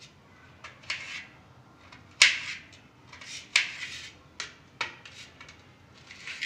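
Kitchen knife cutting summer squash on a cutting board: a series of irregular sharp knocks as the blade goes through and strikes the board, the loudest a little over two seconds in.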